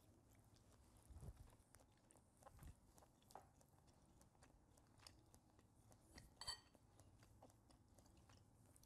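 Near silence with faint chewing and light clicks of a metal fork against a ceramic bowl, and a brief scrape of the fork on the bowl about six and a half seconds in.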